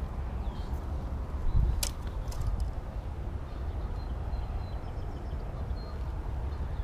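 Wind rumbling across the microphone, with a few sharp clicks about two seconds in.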